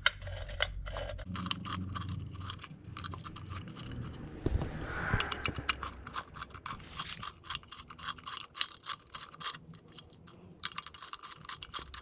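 Hand tools working at the bolts of a 70cc pit bike engine cover: rapid clicking and scraping of metal, with a sharp knock about four and a half seconds in.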